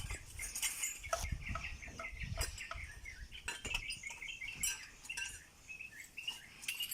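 Short, repeated bird calls, like fowl clucking or chirping, with scattered sharp clicks.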